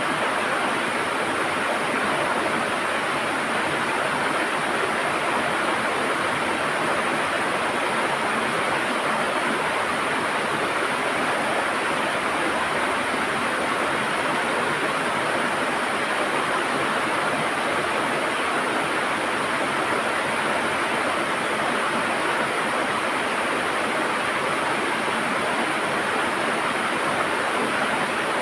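River water rushing and gurgling over rocks, a steady, even sound without breaks.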